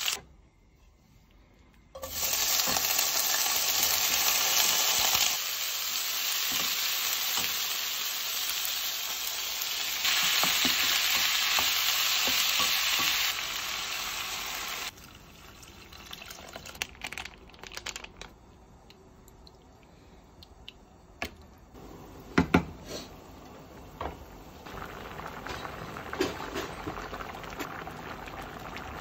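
Chicken and sliced onions sizzling loudly and steadily in a frying pan. About twelve seconds in, water is poured in and the sizzle dies away, leaving scattered clicks and a couple of sharp knocks of a utensil on the pan. Near the end the curry simmers with a soft, steady bubbling.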